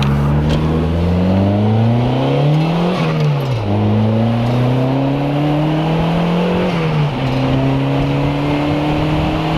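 Turbocharged 2.0-litre four-cylinder of a Mazdaspeed Protege5 with a straight-pipe exhaust under full-throttle acceleration, heard from inside the car. The revs climb, fall sharply with an upshift about three seconds in, climb again, and fall with a second upshift about seven seconds in before rising again.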